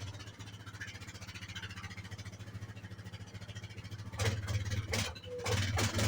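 Yamaha Grizzly 660 ATV's single-cylinder engine idling with an even pulsing beat. About four seconds in come two sharp clunks, and near the end the engine gets louder.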